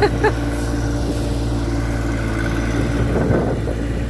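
John Deere 1025R compact tractor's three-cylinder diesel engine running steadily under the front loader, with a short stretch of crackling from dry tomato vines being dragged about three seconds in.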